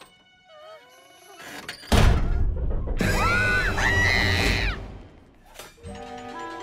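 Cartoon soundtrack: a sudden loud thunk about two seconds in, then a girl's scream lasting nearly two seconds, over background music.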